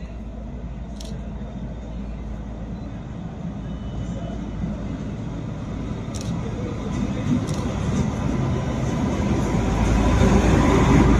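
Diesel locomotive approaching with a freight train of flat wagons, its engine running and the rumble growing steadily louder as it draws near and passes close at the end.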